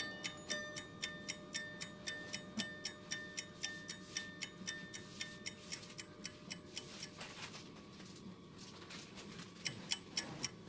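Background music with a steady ticking beat, about three ticks a second, over held high notes; it thins out about seven seconds in and the beat comes back near the end.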